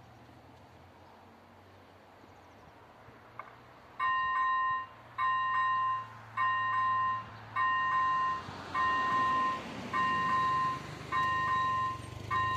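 Railway level-crossing warning signal starting up about four seconds in: an electronic two-tone beep repeating about once every 1.2 seconds, announcing an approaching train as the red lights begin flashing.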